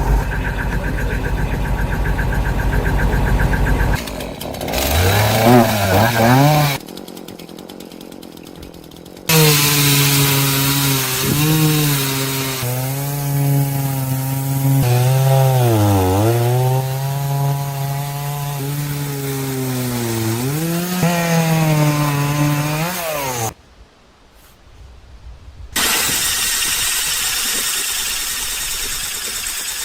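An engine runs for the first few seconds. Then a high-speed handheld power tool spins up, stops, and runs again for about fourteen seconds, its whine dipping in pitch again and again as it is pressed into the work. A steady hiss follows near the end.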